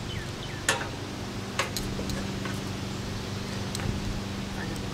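Scattered sharp clicks and taps from the steel-tube frame of a swing-set tower being handled during assembly, two louder ones about a second apart, over a steady low hum.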